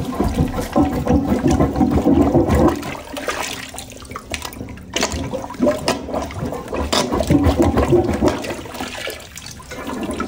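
Plunger pumping in a clogged toilet bowl, water sloshing and splashing with each stroke. The plunging comes in two spells, a lull after about three seconds, then more strokes from about five seconds in.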